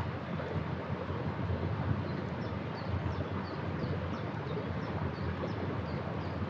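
Wood campfire burning under steady wind noise on the microphone. From about two seconds in, a bird gives short high chirps two or three times a second.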